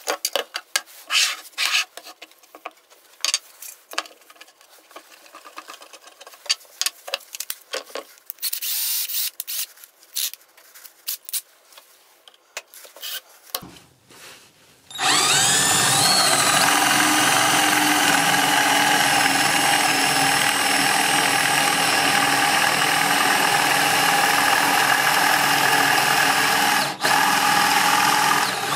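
Scattered clicks and rattles of handling, then about 15 seconds in the JCB 21-18CD 18 V cordless combi hammer drill starts with a rising whine and runs steadily at high speed, dipping briefly once near the end.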